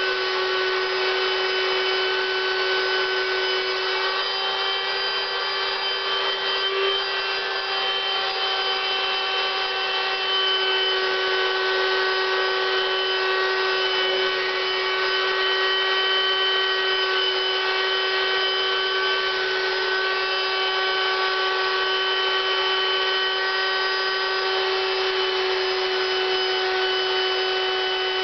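Electric air pump running steadily with a constant humming whine, blowing air into an inflatable latex suit.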